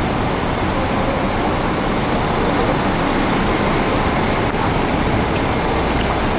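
Steady traffic noise from cars and minivans running at a kerb, an even din with a deeper rumble growing about five seconds in.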